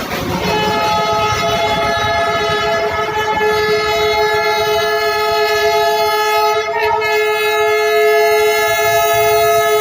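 Darjeeling toy train's locomotive sounding one long, steady horn blast that starts about half a second in and breaks briefly near seven seconds.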